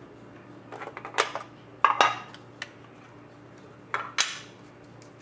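Clear hard-plastic card boxes clacking and scraping as their lids are pulled off and set down: short clusters of sharp clacks about a second in, around two seconds in (the loudest), and again near four seconds.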